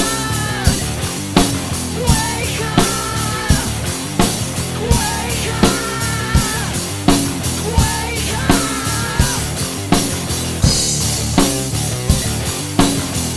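CMC acoustic drum kit played in a steady rock groove, with strong hits about every three-quarters of a second, over a rock backing track carrying a pitched melody line.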